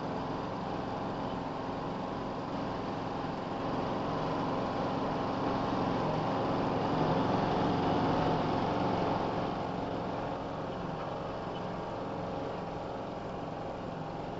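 Unimog engine running steadily under light load, getting louder between about four and nine seconds in and then settling back.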